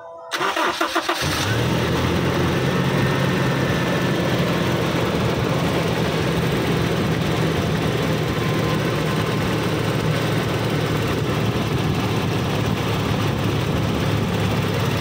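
Toyota Kijang LGX engine cranked by the starter for about a second, then catching and running steadily at idle. The owner describes the engine's noise as strange and rough.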